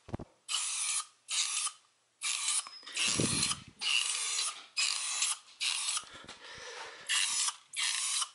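Aerosol spray-paint can spraying gloss black paint onto a cast-iron intake manifold in about a dozen short hissing bursts, each under a second. A dull low knock comes about three seconds in.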